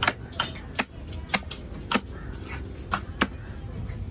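A heavy fish-cutting knife chopping through fish flesh and bone into a wooden log chopping block, about six sharp chops at an uneven pace.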